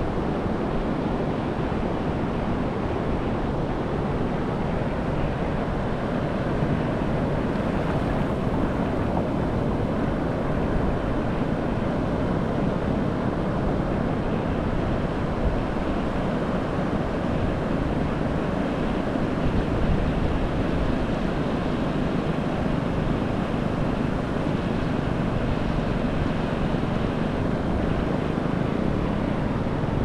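Ocean surf washing steadily onto the beach, a continuous even rush with no distinct breaks, with wind on the microphone adding a low rumble.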